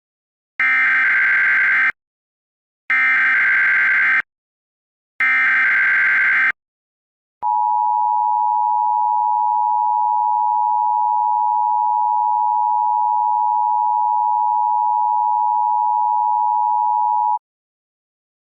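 Emergency Alert System activation: three bursts of SAME header data tones, each about a second and a half long, then about ten seconds of the steady two-tone EAS attention signal. Together they herald a National Weather Service tornado warning.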